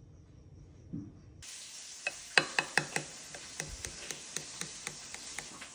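Knife cutting through sticky rice cake in thick caramel syrup in a glass baking dish: a quick, irregular run of small sticky clicks and smacks over a steady hiss, starting suddenly about a second and a half in.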